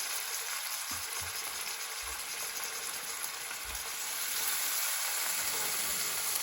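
Fish fillets pan-searing in a hot pan: a steady sizzle of frying.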